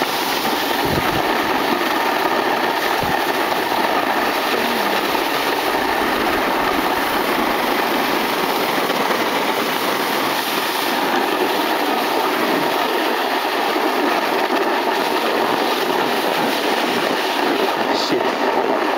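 Snowboard sliding and scraping over packed snow on a steady downhill run, mixed with wind rushing over the microphone.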